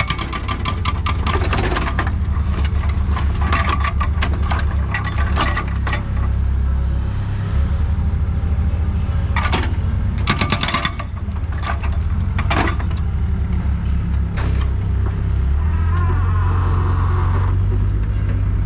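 Diesel engine of a Doosan DX55WA wheeled excavator running, with repeated metallic clanks and knocks from the bucket and working parts. The engine note changes and steadies higher near the end.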